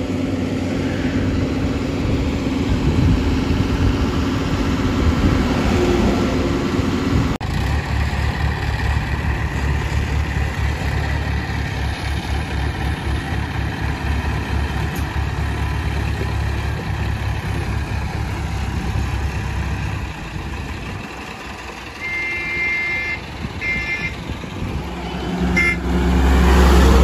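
Hydra mobile crane's diesel engine running steadily while it lifts a dumper's tipping body. Short high beeps come twice about three quarters of the way through, and a truck engine swells loudly near the end.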